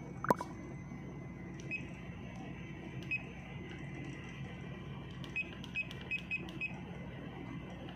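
Short electronic key beeps from a Furuno GP-31 GPS navigator as its cursor keys are pressed to step through letters of a waypoint name: about seven beeps, with a quick run of five in the second half. A sharp click about a third of a second in is the loudest sound.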